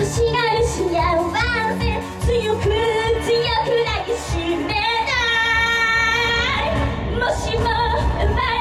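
Female idol singer singing live into a handheld microphone over a Japanese pop backing track, with one long held note about five seconds in.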